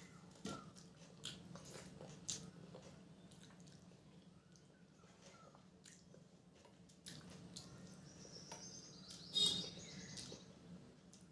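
Quiet eating sounds: chewing, with small wet mouth clicks scattered through, and one louder smack about nine and a half seconds in.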